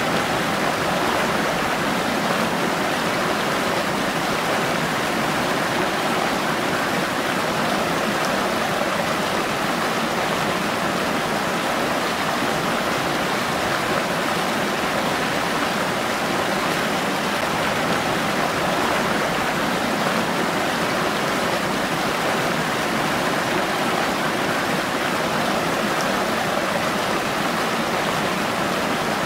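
River water pouring over a low weir into churning whitewater, making a steady, even rushing noise with little deep rumble.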